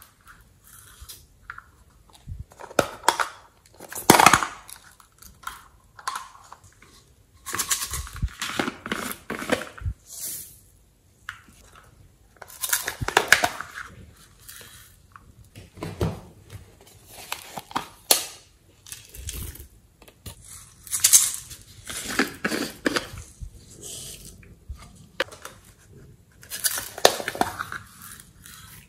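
Small plastic tubs handled and their snap lids opened, with sequins and glitter shaken and tipped out of them, in irregular bursts of sharp clicks and crackly rattles every few seconds.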